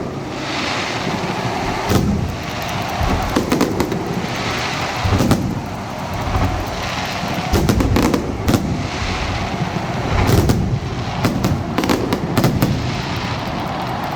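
Aerial fireworks bursting: clusters of sharp bangs every second or two, with crackling and a low rumbling echo between them.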